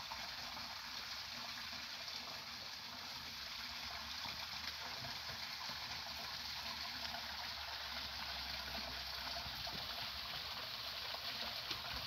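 Irrigation water running steadily through the furrows between crop rows.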